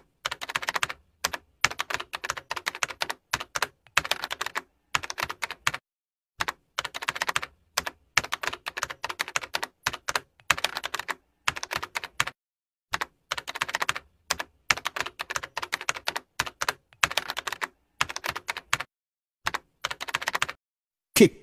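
Typing sound effect: quick runs of key clicks with short pauses between them, keeping time with text being typed out letter by letter on screen.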